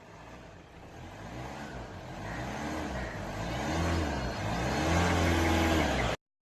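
A car engine revving up and down several times, growing louder, then cut off abruptly.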